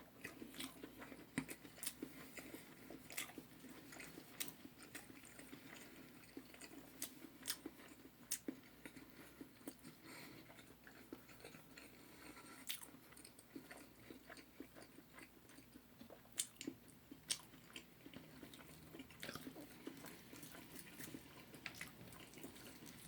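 Close-up chewing and biting on fried chicken: irregular crisp crunches and wet mouth clicks, a few every second.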